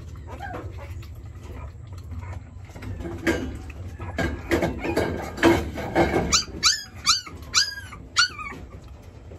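Weaning-age puppy whimpering: a run of short, rough cries from about three seconds in, then five high whines that rise and fall, about half a second apart, near the end.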